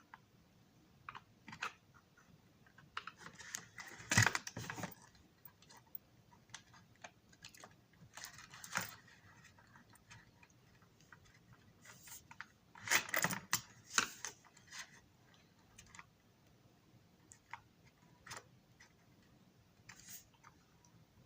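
Scattered light clicks and small rattles of model parts and small tools being handled on a workbench, with two louder clusters of rattling about four and thirteen seconds in.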